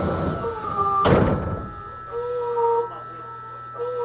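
A heavy thunk about a second in, typical of a train's doors shutting. After it comes a two-note chime that repeats about every second and a half.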